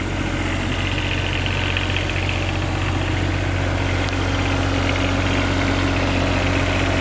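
Diesel engine of a Vote 1.8-ton mini excavator idling steadily while it warms up.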